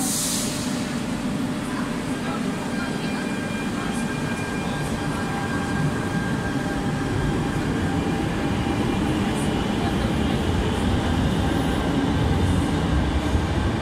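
Barcelona metro electric trains in an underground station. A train runs along the platform with a steady low rumble and a thin whine of steady tones, after a short hiss at the start. The rumble grows louder over the last few seconds as a second train comes in on the opposite track.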